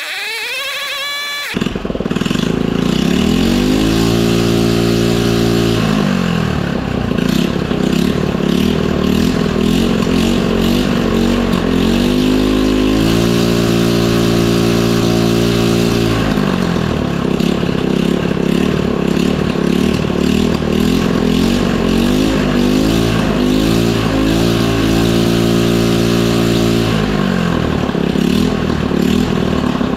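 Small single-cylinder four-stroke mini bike engine running on a piston whose crack has been patched with epoxy. It is revved up and held for a few seconds three times, dropping back to a lower speed in between.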